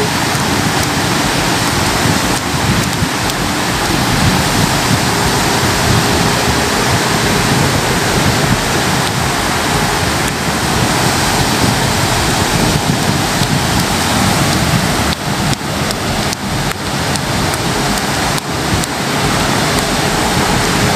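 Steady rushing noise of wind buffeting the microphone, mixed with the wash of surf on the shore.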